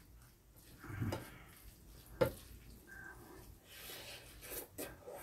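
Faint eating sounds at the table: noodles being eaten from a bowl, with one sharp click of a utensil against tableware a little after two seconds in.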